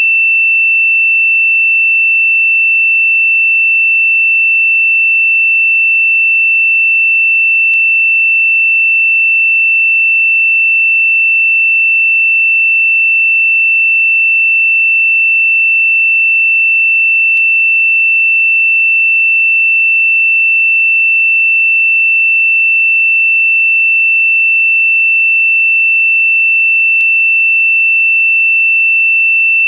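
A single steady, high-pitched pure sine tone, held at one pitch and level without pulsing: an electronically generated meditation frequency tone.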